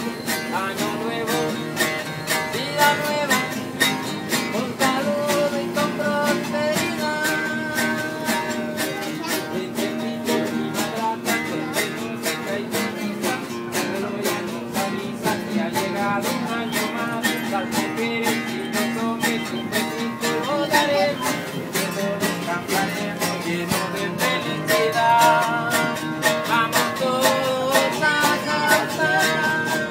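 Acoustic guitar strummed fast and steadily, playing a lively tune.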